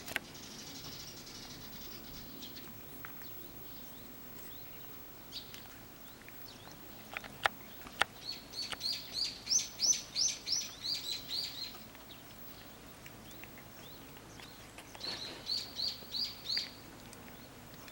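A songbird's chirping: a quick run of about a dozen high notes, then a shorter run of about five. Two sharp clicks come just before the first run.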